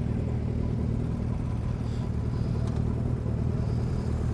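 Motorcycle engine idling, a steady low rumble with no change in speed.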